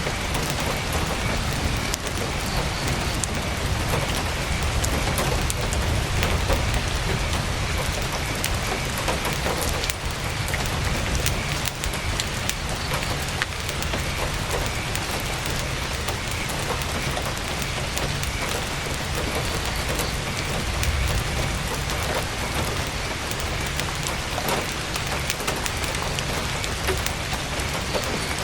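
Heavy rain falling steadily on a tent's fabric, a dense haze of sound dotted with many sharp drop ticks, over a steady low rumble.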